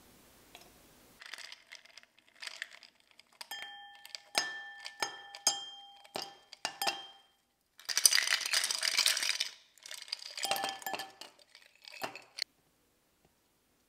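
Ice cubes tipped from a glass measuring cup into a tall drinking glass: scattered sharp clinks while the glass rings on, then a dense clatter of ice tumbling in about eight seconds in, a few more clinks, and a sudden stop.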